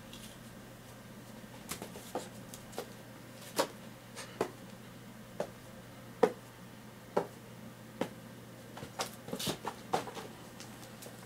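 A kitten pouncing and scampering on a carpeted floor while playing with a feather wand toy: irregular soft taps and thumps, about one a second, with a quicker flurry near the end.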